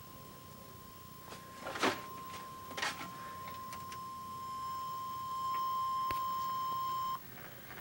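Emergency Alert System alarm tone heard from a TV: one steady high beep that gets louder partway through and cuts off abruptly about seven seconds in. Two short knocks come about two and three seconds in.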